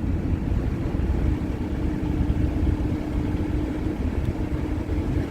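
Cat 308E2 CR excavator's diesel engine running steadily, heard from inside the cab. A steady hum joins from about a second in until about four seconds in, the hydraulics working under load during a lift.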